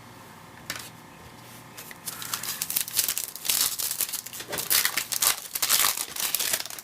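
Trading-card pack wrapper being torn open and crinkled, starting about two seconds in and going on until near the end, after a single click.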